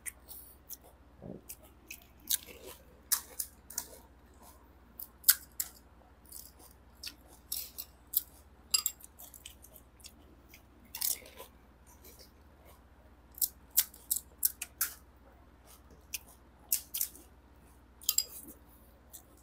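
Crisp panipuri shells being cracked open with the fingers and crunched while being eaten: an irregular run of short, sharp cracks and crunches.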